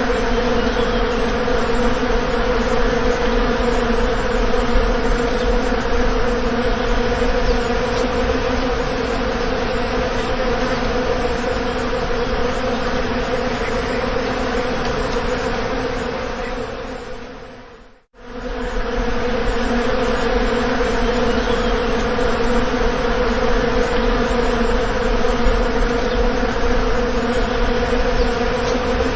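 Bees buzzing in a steady, loud drone with a clear pitch. The buzz briefly fades out and back in about eighteen seconds in.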